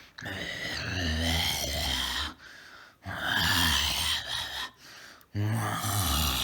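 A person's voice making three drawn-out wordless sounds, each about two seconds long, with short pauses between them.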